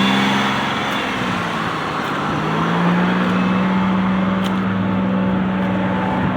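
Pontiac Bonneville's 3.8-litre V6 idling steadily after a head and intake gasket rebuild, its low, even note running smoothly.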